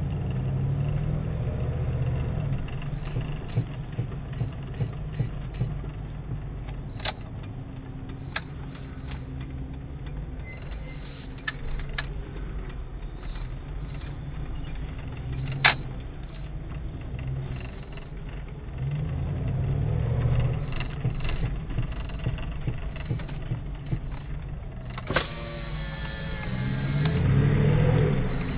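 1998 Jeep Grand Cherokee V8 running with a low engine and road rumble that rises and falls, broken by a few sharp, isolated clacks, the loudest about two-thirds of the way through. The clacks are the strange noise the owner gets when lightly tapping the brake.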